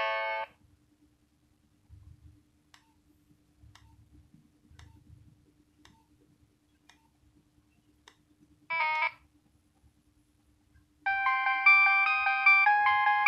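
Nokia 6100 mobile phone playing ringtones through its small speaker: one electronic ringtone cuts off just after the start, faint clicks follow, a brief burst of electronic tone sounds a little past the middle, and a new repeating electronic ringtone melody starts near the end.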